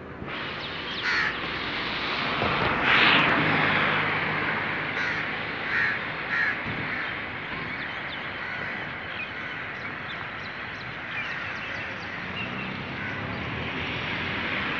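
Crows cawing several times over a steady outdoor background hiss, the loudest call about three seconds in.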